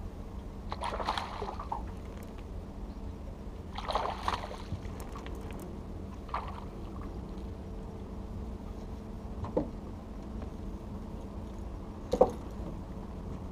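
A hooked largemouth bass splashing at the surface beside the boat as it is played in, five short splashes, the loudest near the end as it is grabbed at the water. A steady low hum runs underneath.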